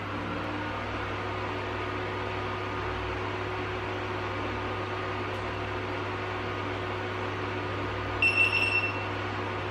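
A 3D printer running just after power-on, its power supply and fans giving a steady hum and hiss. Near the end comes a quick run of high beeps: the GoPro Hero 3+ powering up from the printer's new USB supply.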